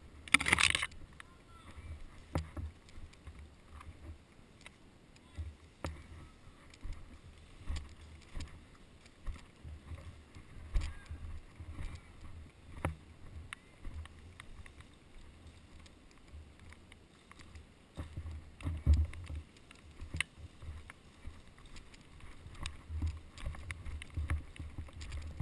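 Footsteps and movement jostling a carried camera while walking through woodland undergrowth: irregular low thuds with scattered sharp clicks, and a brief loud burst of noise about half a second in.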